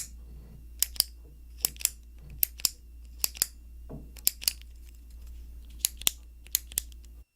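Sharp mechanical clicks in pairs, about eight pairs roughly a second apart, over a low steady hum.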